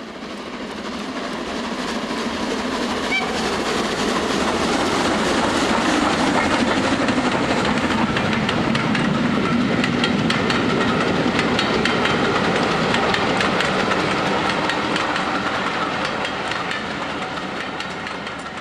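A narrow-gauge train's carriages rolling past, wheels clicking over the rail joints. It grows louder over the first few seconds, holds steady, and begins to die away near the end.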